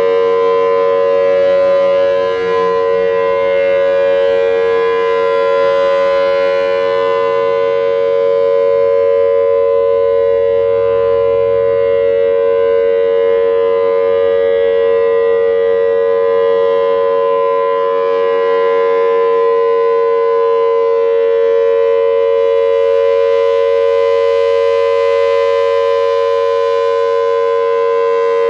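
Federal Signal Thunderbolt 1000T outdoor warning siren sounding its steady alert signal, a loud held two-note tone. It swells and fades slowly as the rotating head turns, brightest a couple of seconds in and again near the end.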